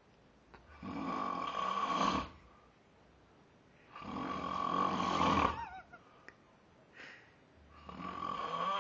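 A man snoring: three long snores, each about a second and a half, coming roughly every three and a half seconds, with a short softer one between the last two.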